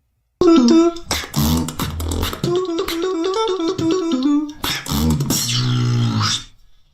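Beatboxing: kick drum and bass sounds under a hummed melody line, starting about half a second in, briefly breaking off midway, and trailing off near the end.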